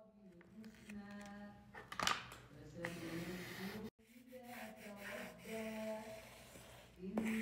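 A single voice chanting in long, held, slowly bending notes. It cuts out for an instant just before four seconds in, then carries on.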